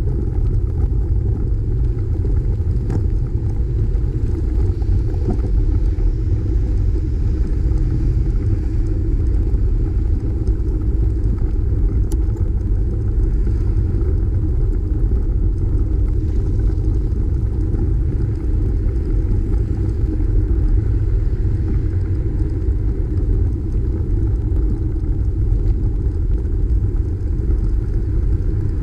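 Steady low rumble of wind buffeting the bicycle camera's microphone while riding, mixed with road noise.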